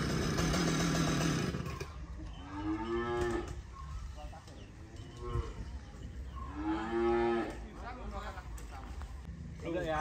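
A chainsaw running, cutting off about two seconds in; then a cow moos twice, each call a little over a second long.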